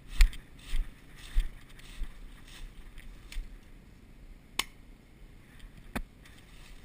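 A run of short knocks and thuds about every half second for the first two seconds, then two sharp clicks, one near the middle and one near the end.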